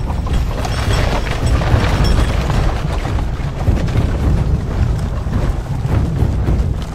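Film sound mix of a deep, steady rumble, as huge wooden siege machines are hauled by rope and pushed across sand.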